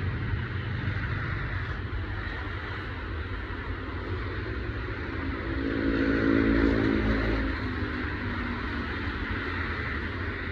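Passing passenger train: a steady rumble with rushing wind noise from its slipstream. Midway a pitched hum swells up and fades again over about three seconds, the loudest part.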